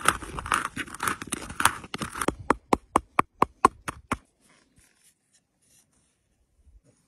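Peppercorns and spices crushed with a pestle in a carved wooden cup. First come dense, gritty grinding and crunching strokes, then a quick run of sharp knocks about five a second. The sound stops a little over four seconds in.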